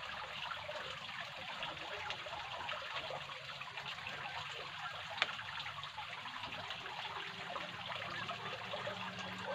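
Running water trickling steadily, with a single sharp click about five seconds in.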